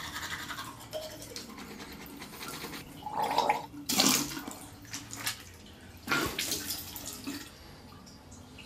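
Manual toothbrush scrubbing teeth, a steady brushing hiss, with a few louder short bursts about three, four and six seconds in.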